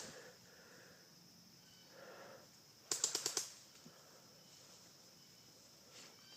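A short burst of about six rapid shots from an airsoft gun, about three seconds in, fired at roughly a dozen shots a second.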